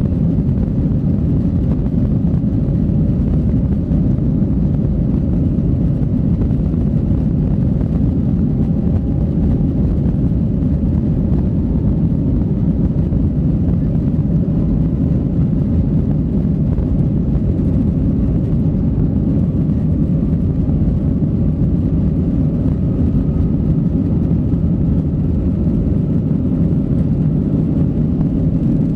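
Cabin noise of a Boeing 737-800 during its takeoff roll, heard inside the cabin over the wing: its two CFM56-7B engines run at steady high power over the low rumble of the roll, and a faint engine whine slowly rises in pitch.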